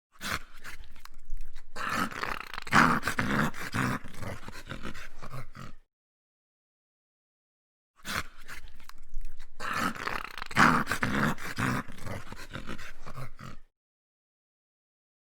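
A dog growling and snarling in two stretches of about five and a half seconds each. Each stretch starts and cuts off abruptly, with dead silence between them.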